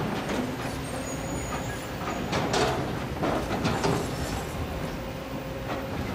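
Diesel engines of Kobelco SK200 hydraulic excavators running steadily, with a run of knocks and clatter from the digging between about two and four seconds in.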